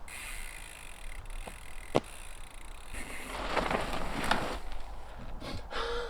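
Downhill mountain bike being ridden on a trail: uneven rolling and rattling noise from tyres and frame, with a sharp knock about two seconds in and louder swells of noise toward the middle and near the end.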